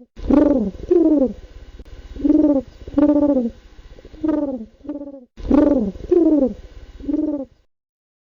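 Pigeon cooing: a dozen or so short, throaty coos in quick groups of two or three, each rising and falling in pitch. They stop about a second before the end.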